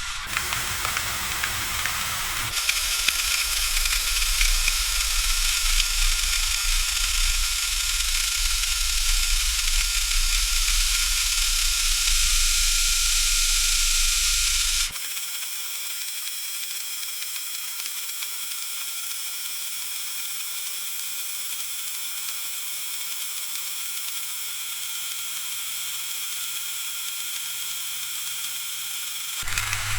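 Food frying in hot oil: a steady, dense sizzle with crackling spatter. About halfway through it drops suddenly to a quieter, thinner sizzle.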